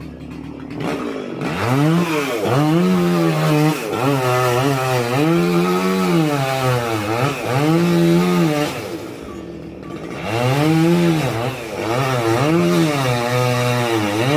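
Chainsaw engine revving and cutting into a dead, dry tree, its pitch repeatedly rising and sagging as the chain bites. It comes in about a second and a half in and drops back briefly around nine seconds in before cutting again.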